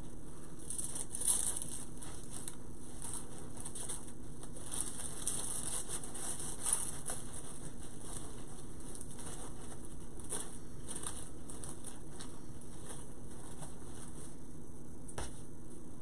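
Ribbon and artificial pine needles rustling and crinkling as hands push a pick into a bow, with a few light knocks, over a steady low hum.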